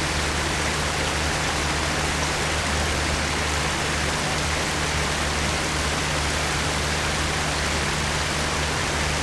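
Steady rush of running water from the exhibit's stream or water feature, with a low steady hum underneath.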